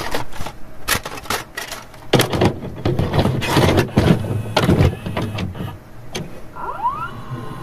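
VHS-style glitch and static sound effects from an edited intro: irregular bursts of crackling noise, densest in the middle, with a couple of short rising whistles near the end.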